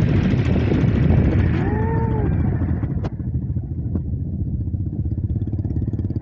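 A motor vehicle's engine running steadily with a low rumble. A short rising-and-falling tone comes about two seconds in, and a sharp click just after three seconds.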